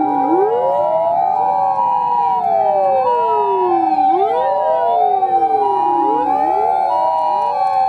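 Several Japanese fire-engine sirens wailing together out of step, each rising quickly and falling slowly, with an ambulance's two-tone 'pee-po' siren alternating between a higher and a lower note over them.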